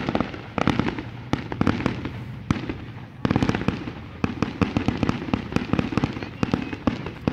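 Fireworks display: a dense, uneven string of sharp pops and bangs from bursting shells, easing for a moment about three seconds in, then picking up again.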